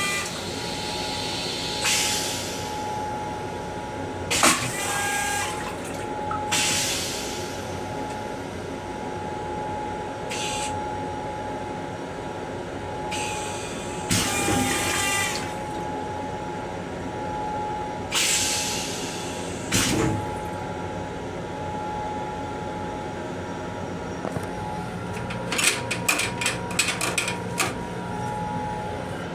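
An M7 railcar toilet flushing, with several short hissing spurts of rinse water. A steady hum from the railcar runs underneath. Near the end comes a quick crackle of toilet paper being handled.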